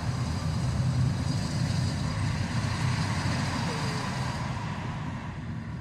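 Steady low rumble with an even hiss over it, like vehicle road noise or wind on a microphone.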